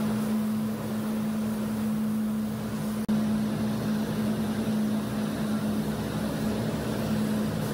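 Steady airy hiss over a low droning machine hum from spray-finishing equipment: a spray gun and its air supply running while wood stain and clear finish are applied. A brief click about three seconds in, after which the sound carries on unchanged.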